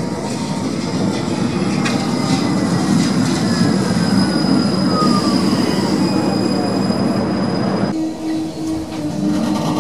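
Modern articulated low-floor tram passing close by on curved track, its wheels squealing on the curve with a long high whine and a slowly falling tone over the rumble of the running gear. About eight seconds in the sound cuts abruptly to the inside of a tram, a steady low hum over running noise.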